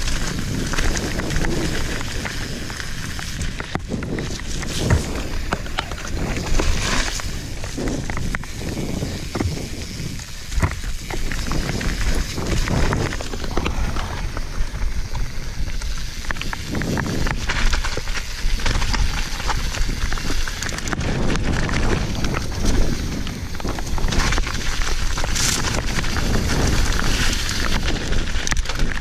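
A YT Capra enduro mountain bike riding fast down a rocky dirt trail, heard through a GoPro's microphone: wind rushing over the mic, tyres crunching on loose stones and the bike rattling and knocking over bumps.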